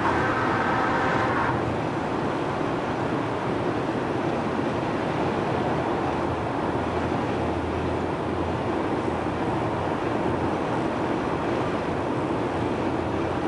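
Steady road and engine noise of a car at highway speed, heard from inside the cabin. A brief higher tone sits over it in the first second and a half.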